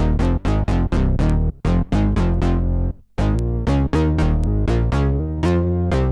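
Electric bass played through an Electro-Harmonix Bass Mono Synth pedal: a fast line of short synth-bass notes, about four a second. Each note opens bright and quickly darkens, like a filter sweeping shut. There is a brief break about three seconds in before the line goes on.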